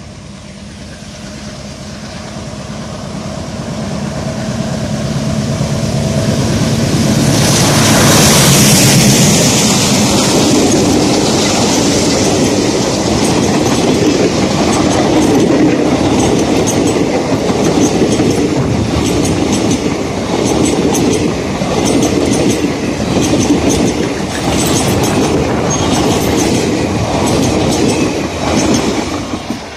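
An Indian Railways WDM-3-series ALCO diesel locomotive approaches, its engine growing louder and passing closest about eight seconds in. A long train of passenger coaches follows, with a steady clickety-clack of wheels over the rail joints.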